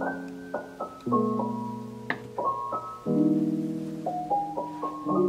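Background music: solo piano playing slow chords, each struck about once a second and left to ring and fade.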